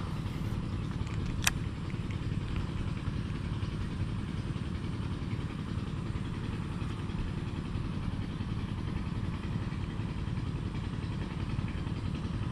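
Steady low rumble of wind buffeting the microphone, with one sharp click about a second and a half in.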